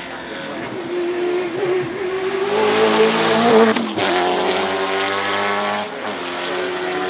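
Holden VE Commodore V8 Supercar's naturally aspirated 5.0-litre V8 at full throttle as the car accelerates past. The note climbs in pitch and loudness, breaks sharply about four seconds in on an upshift, then climbs again and drops near the end as it shifts again and pulls away.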